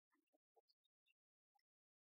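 Near silence, with only a few very faint, brief blips.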